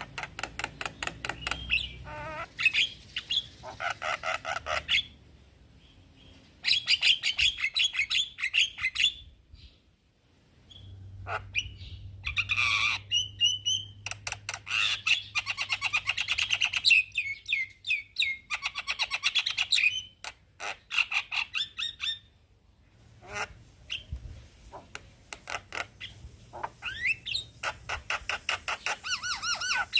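Javan myna (jalak kebo) singing in bouts of rapid chattering, clicking and harsh squawking notes, with short pauses between the bouts.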